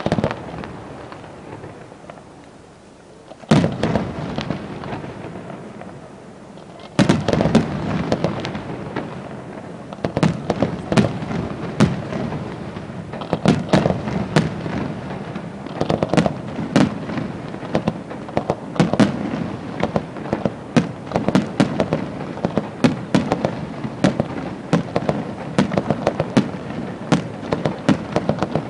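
Aerial fireworks shells bursting: one sharp bang about three seconds in and another about seven seconds in, then from about ten seconds a rapid, continuous run of bangs and cracks.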